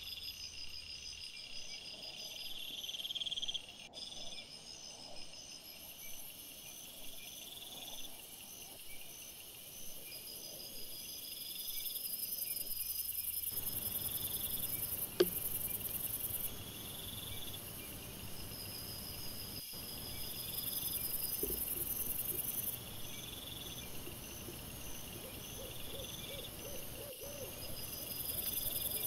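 Night insects such as crickets chirping in overlapping pulsed trains at several high pitches, each starting and stopping in turn, with one sharp click about halfway.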